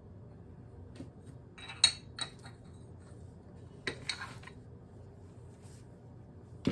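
Porcelain decorative plates clinking and knocking as they are handled and set down: a few sharp clinks in two clusters about two seconds apart, with a duller knock at the very end.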